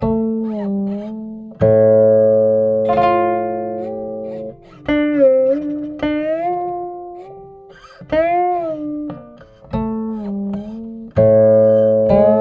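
A guqin (seven-string Chinese zither) played solo: plucked notes that ring and fade, with pitch slides and a wavering vibrato made by the left hand along the string. Deep open-string notes sound at about two seconds in and again near the end.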